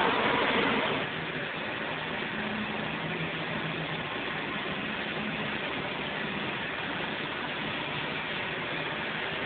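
Steady machinery noise from the stone shop, louder for about the first second and then settling to a lower, even level with a faint low hum.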